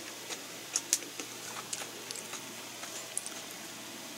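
Light, irregular clicks and taps of chopsticks on tableware while picking up salad greens.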